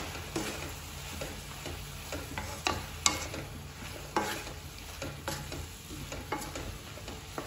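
Spatula stirring diced onions, capsicum and tomatoes frying in a non-stick wok: a low sizzle with irregular knocks and scrapes of the spatula against the pan.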